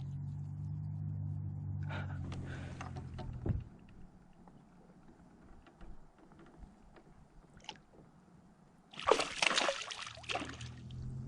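Water sloshing and splashing beside a kayak as a largemouth bass is released, with a loud splash about nine seconds in. A steady low hum runs under the first three and a half seconds, then stops.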